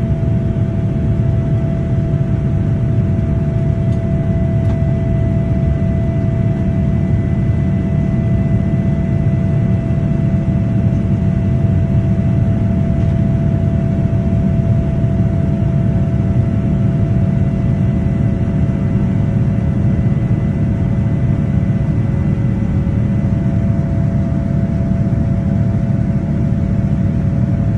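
Boeing 787-9 cabin noise during the climb after takeoff, heard from a window seat beside the wing: a loud, steady rumble of the General Electric GEnx-1B turbofans and airflow, with a few steady whining tones over it.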